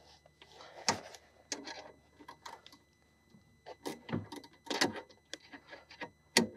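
Ratcheting box-end wrench being worked on a window regulator's bottom bolt: irregular metallic clicks and knocks, some in quick little clusters. The wrench is failing to ratchet on the bolt.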